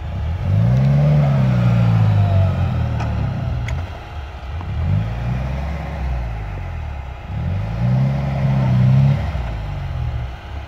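Willys jeep engine revving hard in three surges under load while it tries to tow a stuck Lada Niva out of deep sand; each time the revs climb and then fall back.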